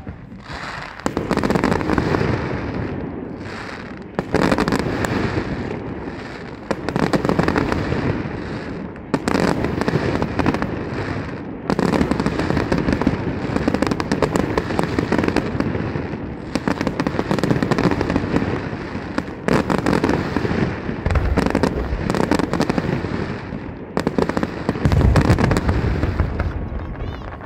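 Aerial fireworks display: a rapid, near-continuous run of shell bursts, bangs and crackling, with the heaviest low booms near the end.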